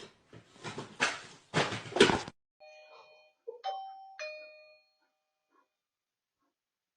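Clattering and rustling that cuts off abruptly about two seconds in, followed by a few ringing metallic strikes that fade out.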